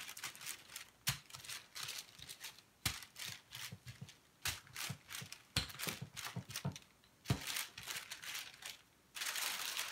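Parchment paper crinkling and rustling as a wooden rolling pin is worked back and forth over it, rolling a ground-chicken crust mixture flat between two sheets, with several sharp knocks among the rustling.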